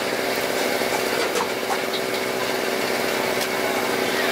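Steady drone of a small engine running without change, with a few faint clicks of a metal ladle on the wok and the rice box.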